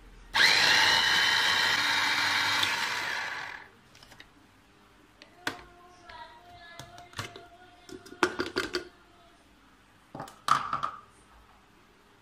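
Green home electric food chopper running for about three seconds, pureeing mango chunks; its whine rises as the motor spins up, then it stops. After that come scattered clicks and knocks of the plastic bowl and lid being handled.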